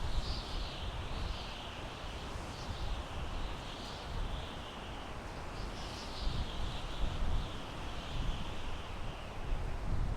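Wind blowing through pine trees: a continuous rushing hiss over a low rumble, with the higher hiss swelling and easing every second or two as gusts move through the needles.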